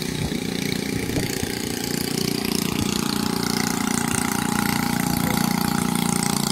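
Caterpillar excavator's diesel engine running steadily, a little louder from about two seconds in; the engine is throwing heavy black smoke.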